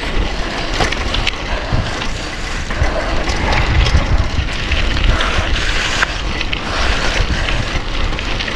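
Bicycle tyres rolling fast over a gritty dirt track, with a steady crackle of grit and small clicks and rattles from the bike, while wind buffets an action camera's microphone with a low rumble.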